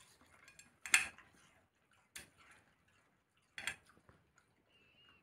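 Three sharp clinks of cutlery against a plate, each about a second and a half apart, the first the loudest.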